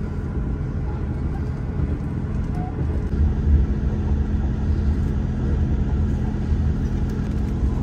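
Steady low rumble of a KiHa 283 series diesel railcar heard from inside the passenger cabin, its diesel engines humming under the running noise as the train arrives at its terminal station. The rumble swells briefly about three seconds in.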